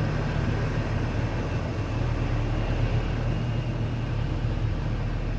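Mobile crane's engine running steadily with a low rumble as the crane is moved off the site.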